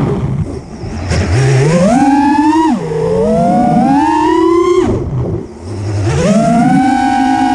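Four DYS Wei 2600kV brushless motors and propellers on an FPV racing quadcopter whining, heard from the camera mounted on the quad. The pitch climbs with each punch of throttle and falls sharply each time the throttle is cut, three times, then holds a steady high whine near the end.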